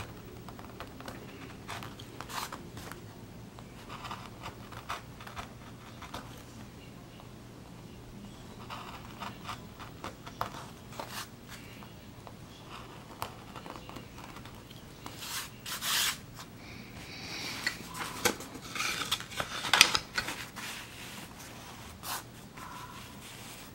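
Hand gouge cutting into a plywood woodblock: short, scratchy cutting strokes, with a run of longer, louder strokes about two-thirds of the way through, over a faint steady hum.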